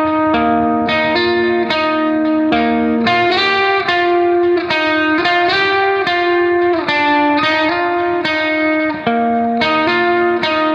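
Background music: a guitar playing a melody of held notes in an even rhythm.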